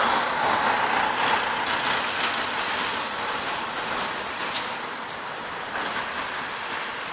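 Road traffic: a passing vehicle's engine and tyre noise, loudest at the start and fading away over several seconds, with a few faint clicks.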